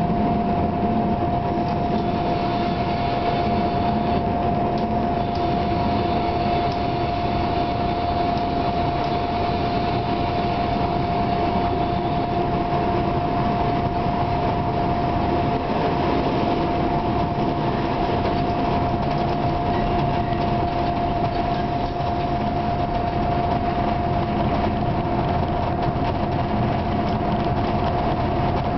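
Class 749 diesel-electric locomotive heard from inside its cab while under way: a steady engine drone, with a strong constant high whine running over it.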